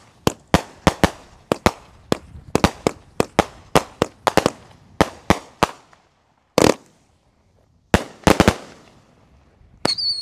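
A Lunar Rainbow 50-shot firework cake firing, a quick run of sharp bangs at about three a second, each with a short fading tail. After about six seconds it slows to a single bang, a pause, then a few more.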